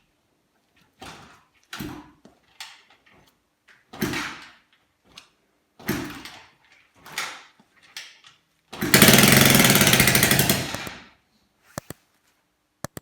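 Rebuilt 125cc 1P39FMI motorcycle engine coughing in several short bursts, then running for about two seconds with fast, even firing before dying away. Two sharp clicks follow near the end.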